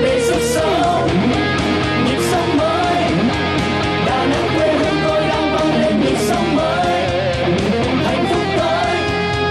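Pop song music with a prominent strummed guitar and a steady beat, in an instrumental passage between sung lines.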